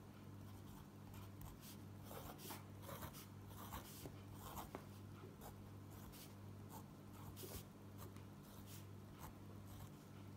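Fine-tip pen scratching faintly on paper in short, irregular strokes as numbers are written, circled and small lines drawn, over a low steady hum.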